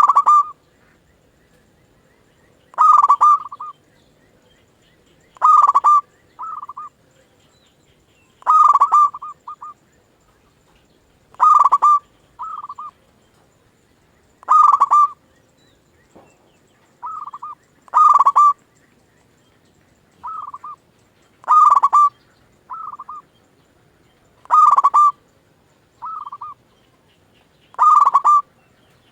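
Local zebra dove (perkutut) cooing: ten loud phrases about three seconds apart. Many of them are followed by a quieter, shorter coo.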